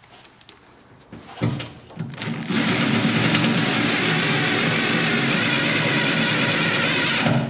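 Cordless drill driving a self-tapping screw into the van door's sheet metal: two short blips of the trigger, then the drill runs steadily for about five seconds with a high motor whine, stopping just before the end.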